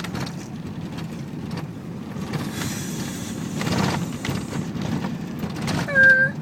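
Chevy Tahoe cabin noise while crawling slowly over a rough road: a steady low rumble with scattered knocks and rattles. Near the end a short, flat tone sounds briefly, the loudest moment.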